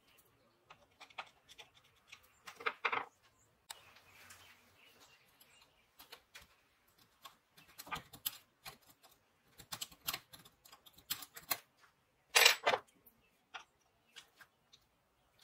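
A metal pick clicking and scraping against the rusty steel screw head and bracket of an old hand drill, in scattered short strokes with a louder burst of scraping about twelve seconds in.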